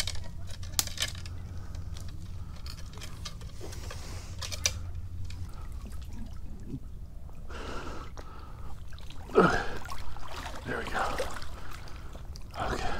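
Water sloshing and splashing around a wader's legs while wading through shallow creek water, with a few sharp clicks early on. The loudest splashes come about two-thirds of the way through.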